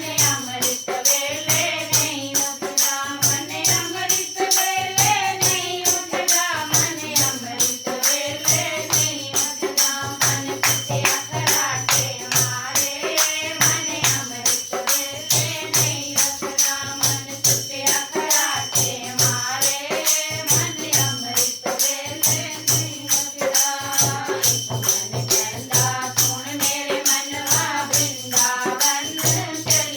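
Devotional bhajan kirtan music: a wavering melody over a steady, quick beat of drum and jingling percussion.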